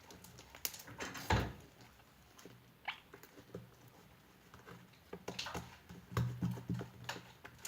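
Scattered soft clicks and taps, with one louder knock about a second and a half in, from a glue bottle being handled as the glue is poured out.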